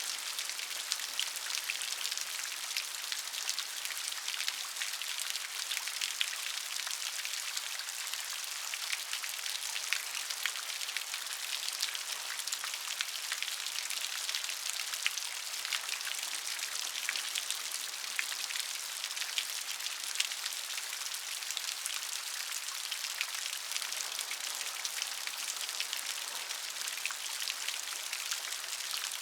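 Steady rain dripping and splashing off a roof, a dense patter of individual drops over a constant hiss.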